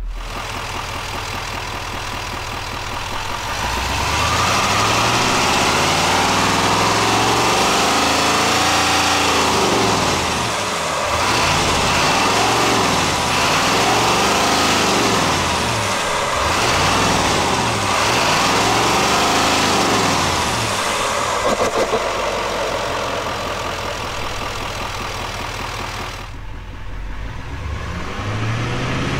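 Chevrolet Duramax 6.6-litre turbo-diesel V8 idling, then revved up and let fall back several times with the truck in Park, before settling back to idle and starting to rise again near the end.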